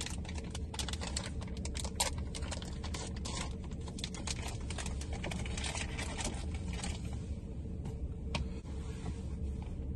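Plastic candy bag of gummies crinkling and crackling in someone's hands as it is opened: a quick, irregular run of small crackles over a steady low hum.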